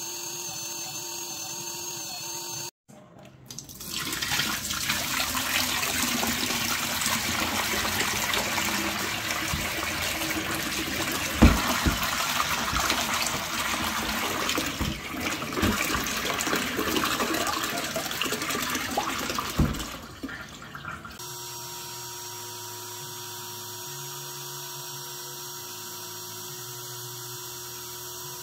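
Portable carpet extractor running with a steady motor whine. After a cut, dirty brown water gurgles and sloshes loudly in its tank for about seventeen seconds, with a couple of sharp knocks. Then the steady motor hum returns.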